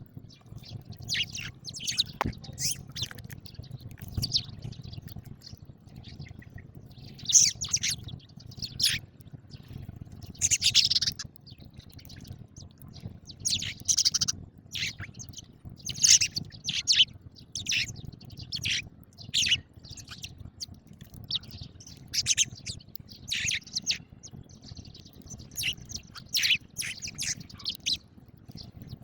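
House sparrows chirping, many short repeated chirps coming irregularly one after another.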